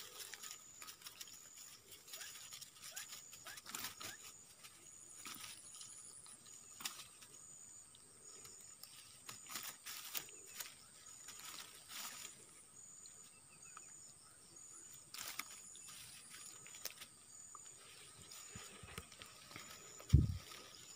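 Quiet outdoor ambience of insects: a steady high buzz with a high chirp repeating about once a second, under scattered faint clicks and rustles. One low thump sounds near the end.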